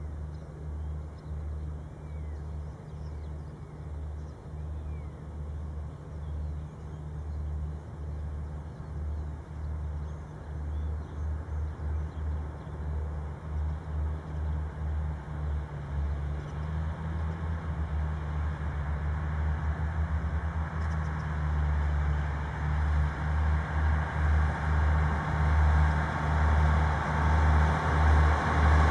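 FS D.145 diesel-electric locomotive hauling an empty car-carrier freight train, its engine a low pulsing drone that grows steadily louder as the train approaches.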